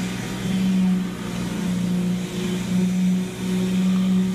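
Steady low hum of a running machine, with a fainter higher tone above it and slight wavers in level.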